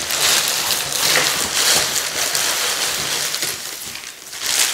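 A plastic bag rustling and crinkling as it is handled, in a run of irregular noisy bursts with a brief lull near the end.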